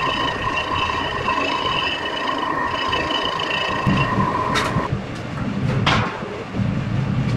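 Vertical milling machine running, its cutter facing off the top of a broken bolt stub in an aluminium cylinder head, with a steady whine. About five seconds in the whine stops, two short sharp noises follow, and a lower rumble takes over.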